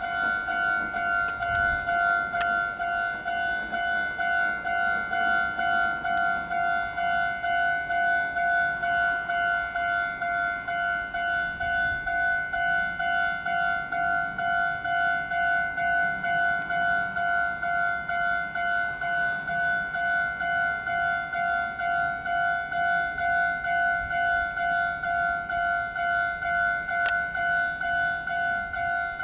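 Japanese railway level-crossing warning bell ringing in an even, repeating ding at about two strokes a second, the signal that a train is approaching and the barriers are down.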